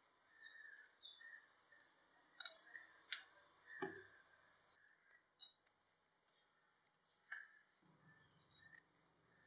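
Faint, scattered light clicks of whole spices (a cinnamon stick, cloves, black sesame seeds) being set down into a dry non-stick pan, about half a dozen short ticks over near silence.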